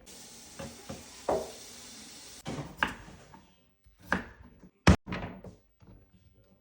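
Kitchen handling sounds: a steady hiss for about two and a half seconds, then several knocks and thuds, with one sharp loud click just before five seconds.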